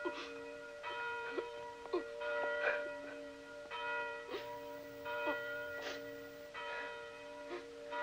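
Bells ringing, their tones ringing on in stretches of about a second with brief gaps, with short sharp sounds scattered between.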